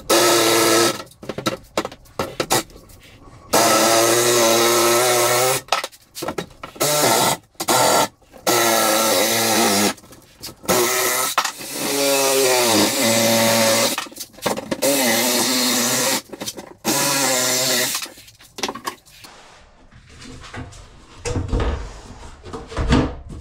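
Cordless drill running in a series of short bursts, its pitch sagging in some as the motor takes load, as when driving screws. A few low knocks near the end.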